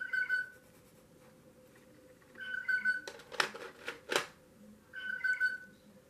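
A bird-call clock playing a recorded bird call three times, each a short held whistle-like note. Between the second and third calls comes a louder burst of scratchy noise.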